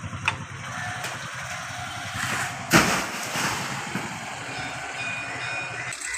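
A small engine running unevenly, with one loud sharp impact nearly three seconds in.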